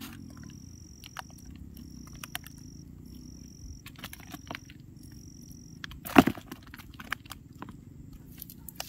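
A wet cast net being handled on mud: scattered small clicks and wet crackles, with one sharp snap about six seconds in. A steady low hum runs underneath, and a thin high tone repeats in pulses of about a second.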